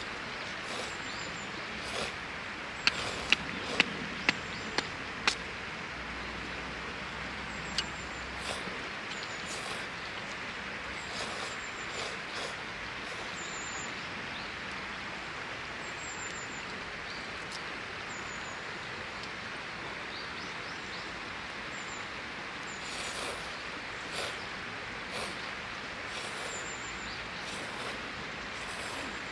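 Outdoor riverside ambience: a steady, even rush, high bird chirps every few seconds, and a quick run of about five sharp clicks about three seconds in, with one more a few seconds later.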